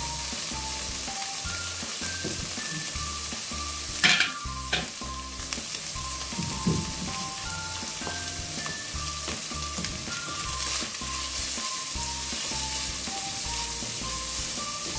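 Diced bacon and calabresa sausage sizzling as they fry in a pot, stirred with a spatula, with a couple of sharp knocks of the spatula against the pot about four seconds in. Soft background music with a steady bass beat plays underneath.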